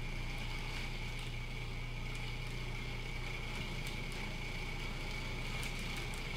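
Countertop food processor running steadily, its motor mixing a thick oat energy-bite dough, with a low hum and a steady high whine.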